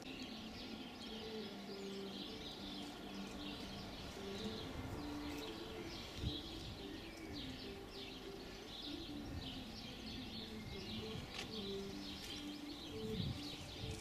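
Small garden birds chirping and singing, many short high calls overlapping, heard faintly. Under them runs a low line of held notes stepping up and down in pitch.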